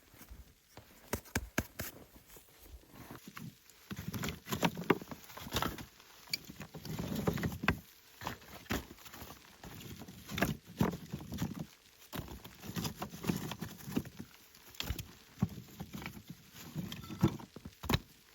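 Footsteps crunching and thudding through deep snow, an uneven run of steps with sharp crunches over soft low thuds.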